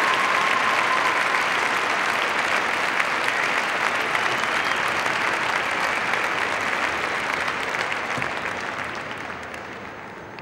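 Large crowd applauding steadily in an arena, the clapping fading away over the last two seconds.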